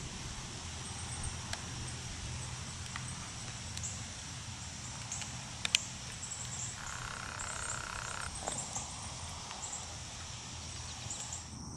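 Outdoor ambience of insects chirring steadily in a high, thin band, with a faint low hum underneath. A few faint clicks stand out, and a brief steady higher tone lasts about a second and a half a little past the middle.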